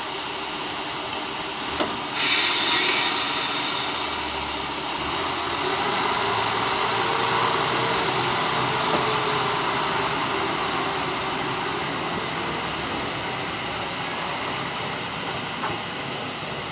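Hojo Railway Flower 2000 diesel railcar pulling away from a station. A click and then a sharp burst of air hiss about two seconds in, as the air brakes release. The diesel engine then revs up as the railcar moves off, and its sound slowly fades as it draws away.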